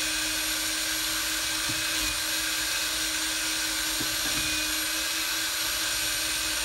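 Cordless drill running at a steady speed, spinning a cotton polishing mop as an aluminium engine case cover is held against it for buffing with compound: a constant whirr with a steady hum.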